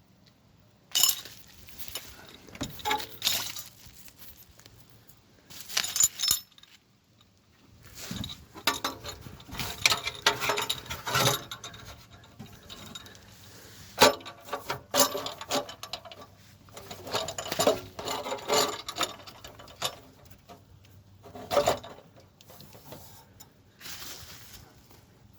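Metal tools and parts clinking and scraping in irregular bursts with short pauses between them, typical of hand work on exhaust bracket hardware.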